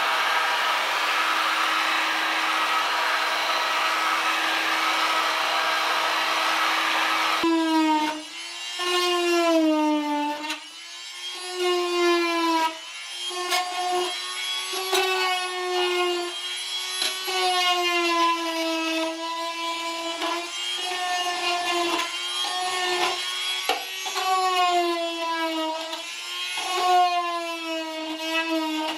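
An electric heat gun blows with a steady hiss and hum. About seven seconds in it gives way to a corded oscillating tool with a scraper blade, buzzing as it scrapes old sound deadening off the steel floor pan, its pitch dipping again and again as the blade bites under load.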